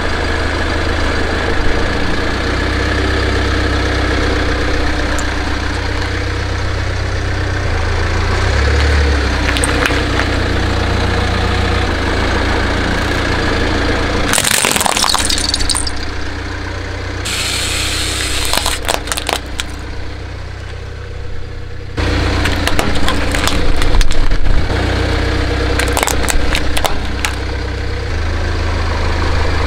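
A car engine idling with a steady low rumble while objects crack and crunch under its tyres, in scattered sharp snaps that come thickest in the second half. The engine sound cuts out abruptly twice, about halfway through and again a few seconds later.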